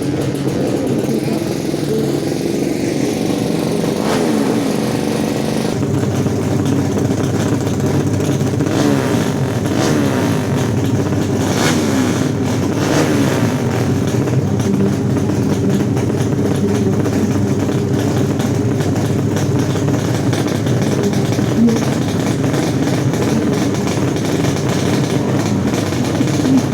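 Tuned 200cc four-stroke underbone drag-racing motorcycles running and revving, the engine pitch rising and falling again and again.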